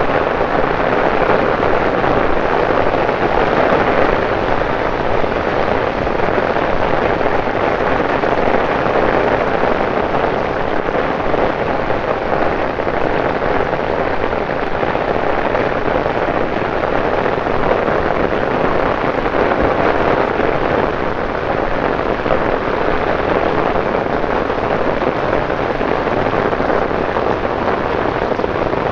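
Torrential rain pouring onto a city street and pavement: a dense, even hiss of drops that holds steady throughout.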